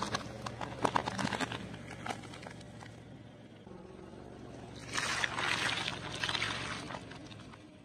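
A car tyre rolling over and crushing objects on concrete: crackling and popping for the first couple of seconds, then a wet squishing burst about five seconds in as the tyre flattens a foil tray of water beads. A low steady engine hum runs underneath.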